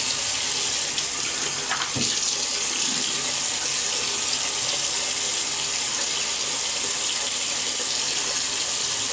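Bathroom tap running steadily into a sink, with water splashing as the face is wet with it before a wet shave.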